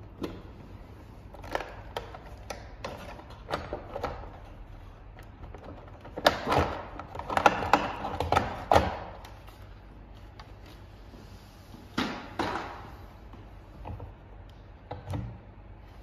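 Clicks, knocks and plastic clattering as the louvered plastic cover and propeller of a wall-mounted ventilation fan are pried off and lifted away. The clatter is densest about six to nine seconds in, with sharp knocks about twelve and fifteen seconds in.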